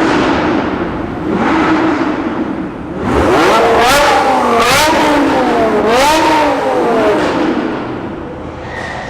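Vehicle engine idling, then revved hard several times in a row from about three seconds in, its pitch climbing and dropping with each blip before settling back toward idle near the end.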